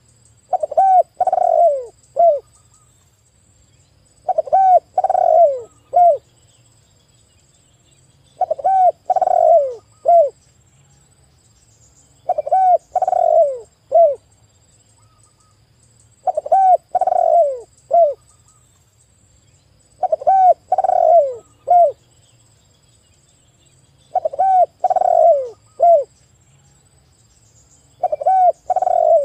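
Spotted dove singing its cooing song: a phrase of several short, falling coos, repeated about every four seconds.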